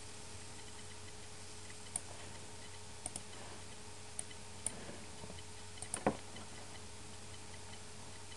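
A handful of sharp computer mouse clicks, spaced irregularly, the loudest a little after six seconds in, over a steady low hum of room and computer noise.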